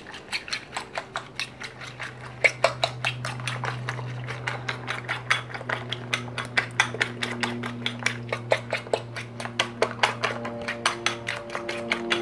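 A metal utensil clinks rapidly against a ceramic bowl, about five strikes a second, while beating raw eggs with minced pork, chili and holy basil. Low held notes of background music sit underneath and grow fuller near the end.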